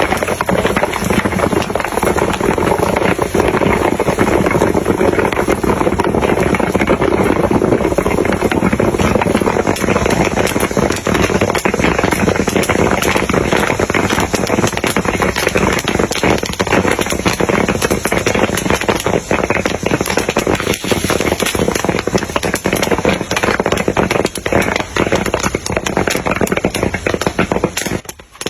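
Popcorn kernels popping: a rapid, dense crackle of many small pops over a steady rushing noise.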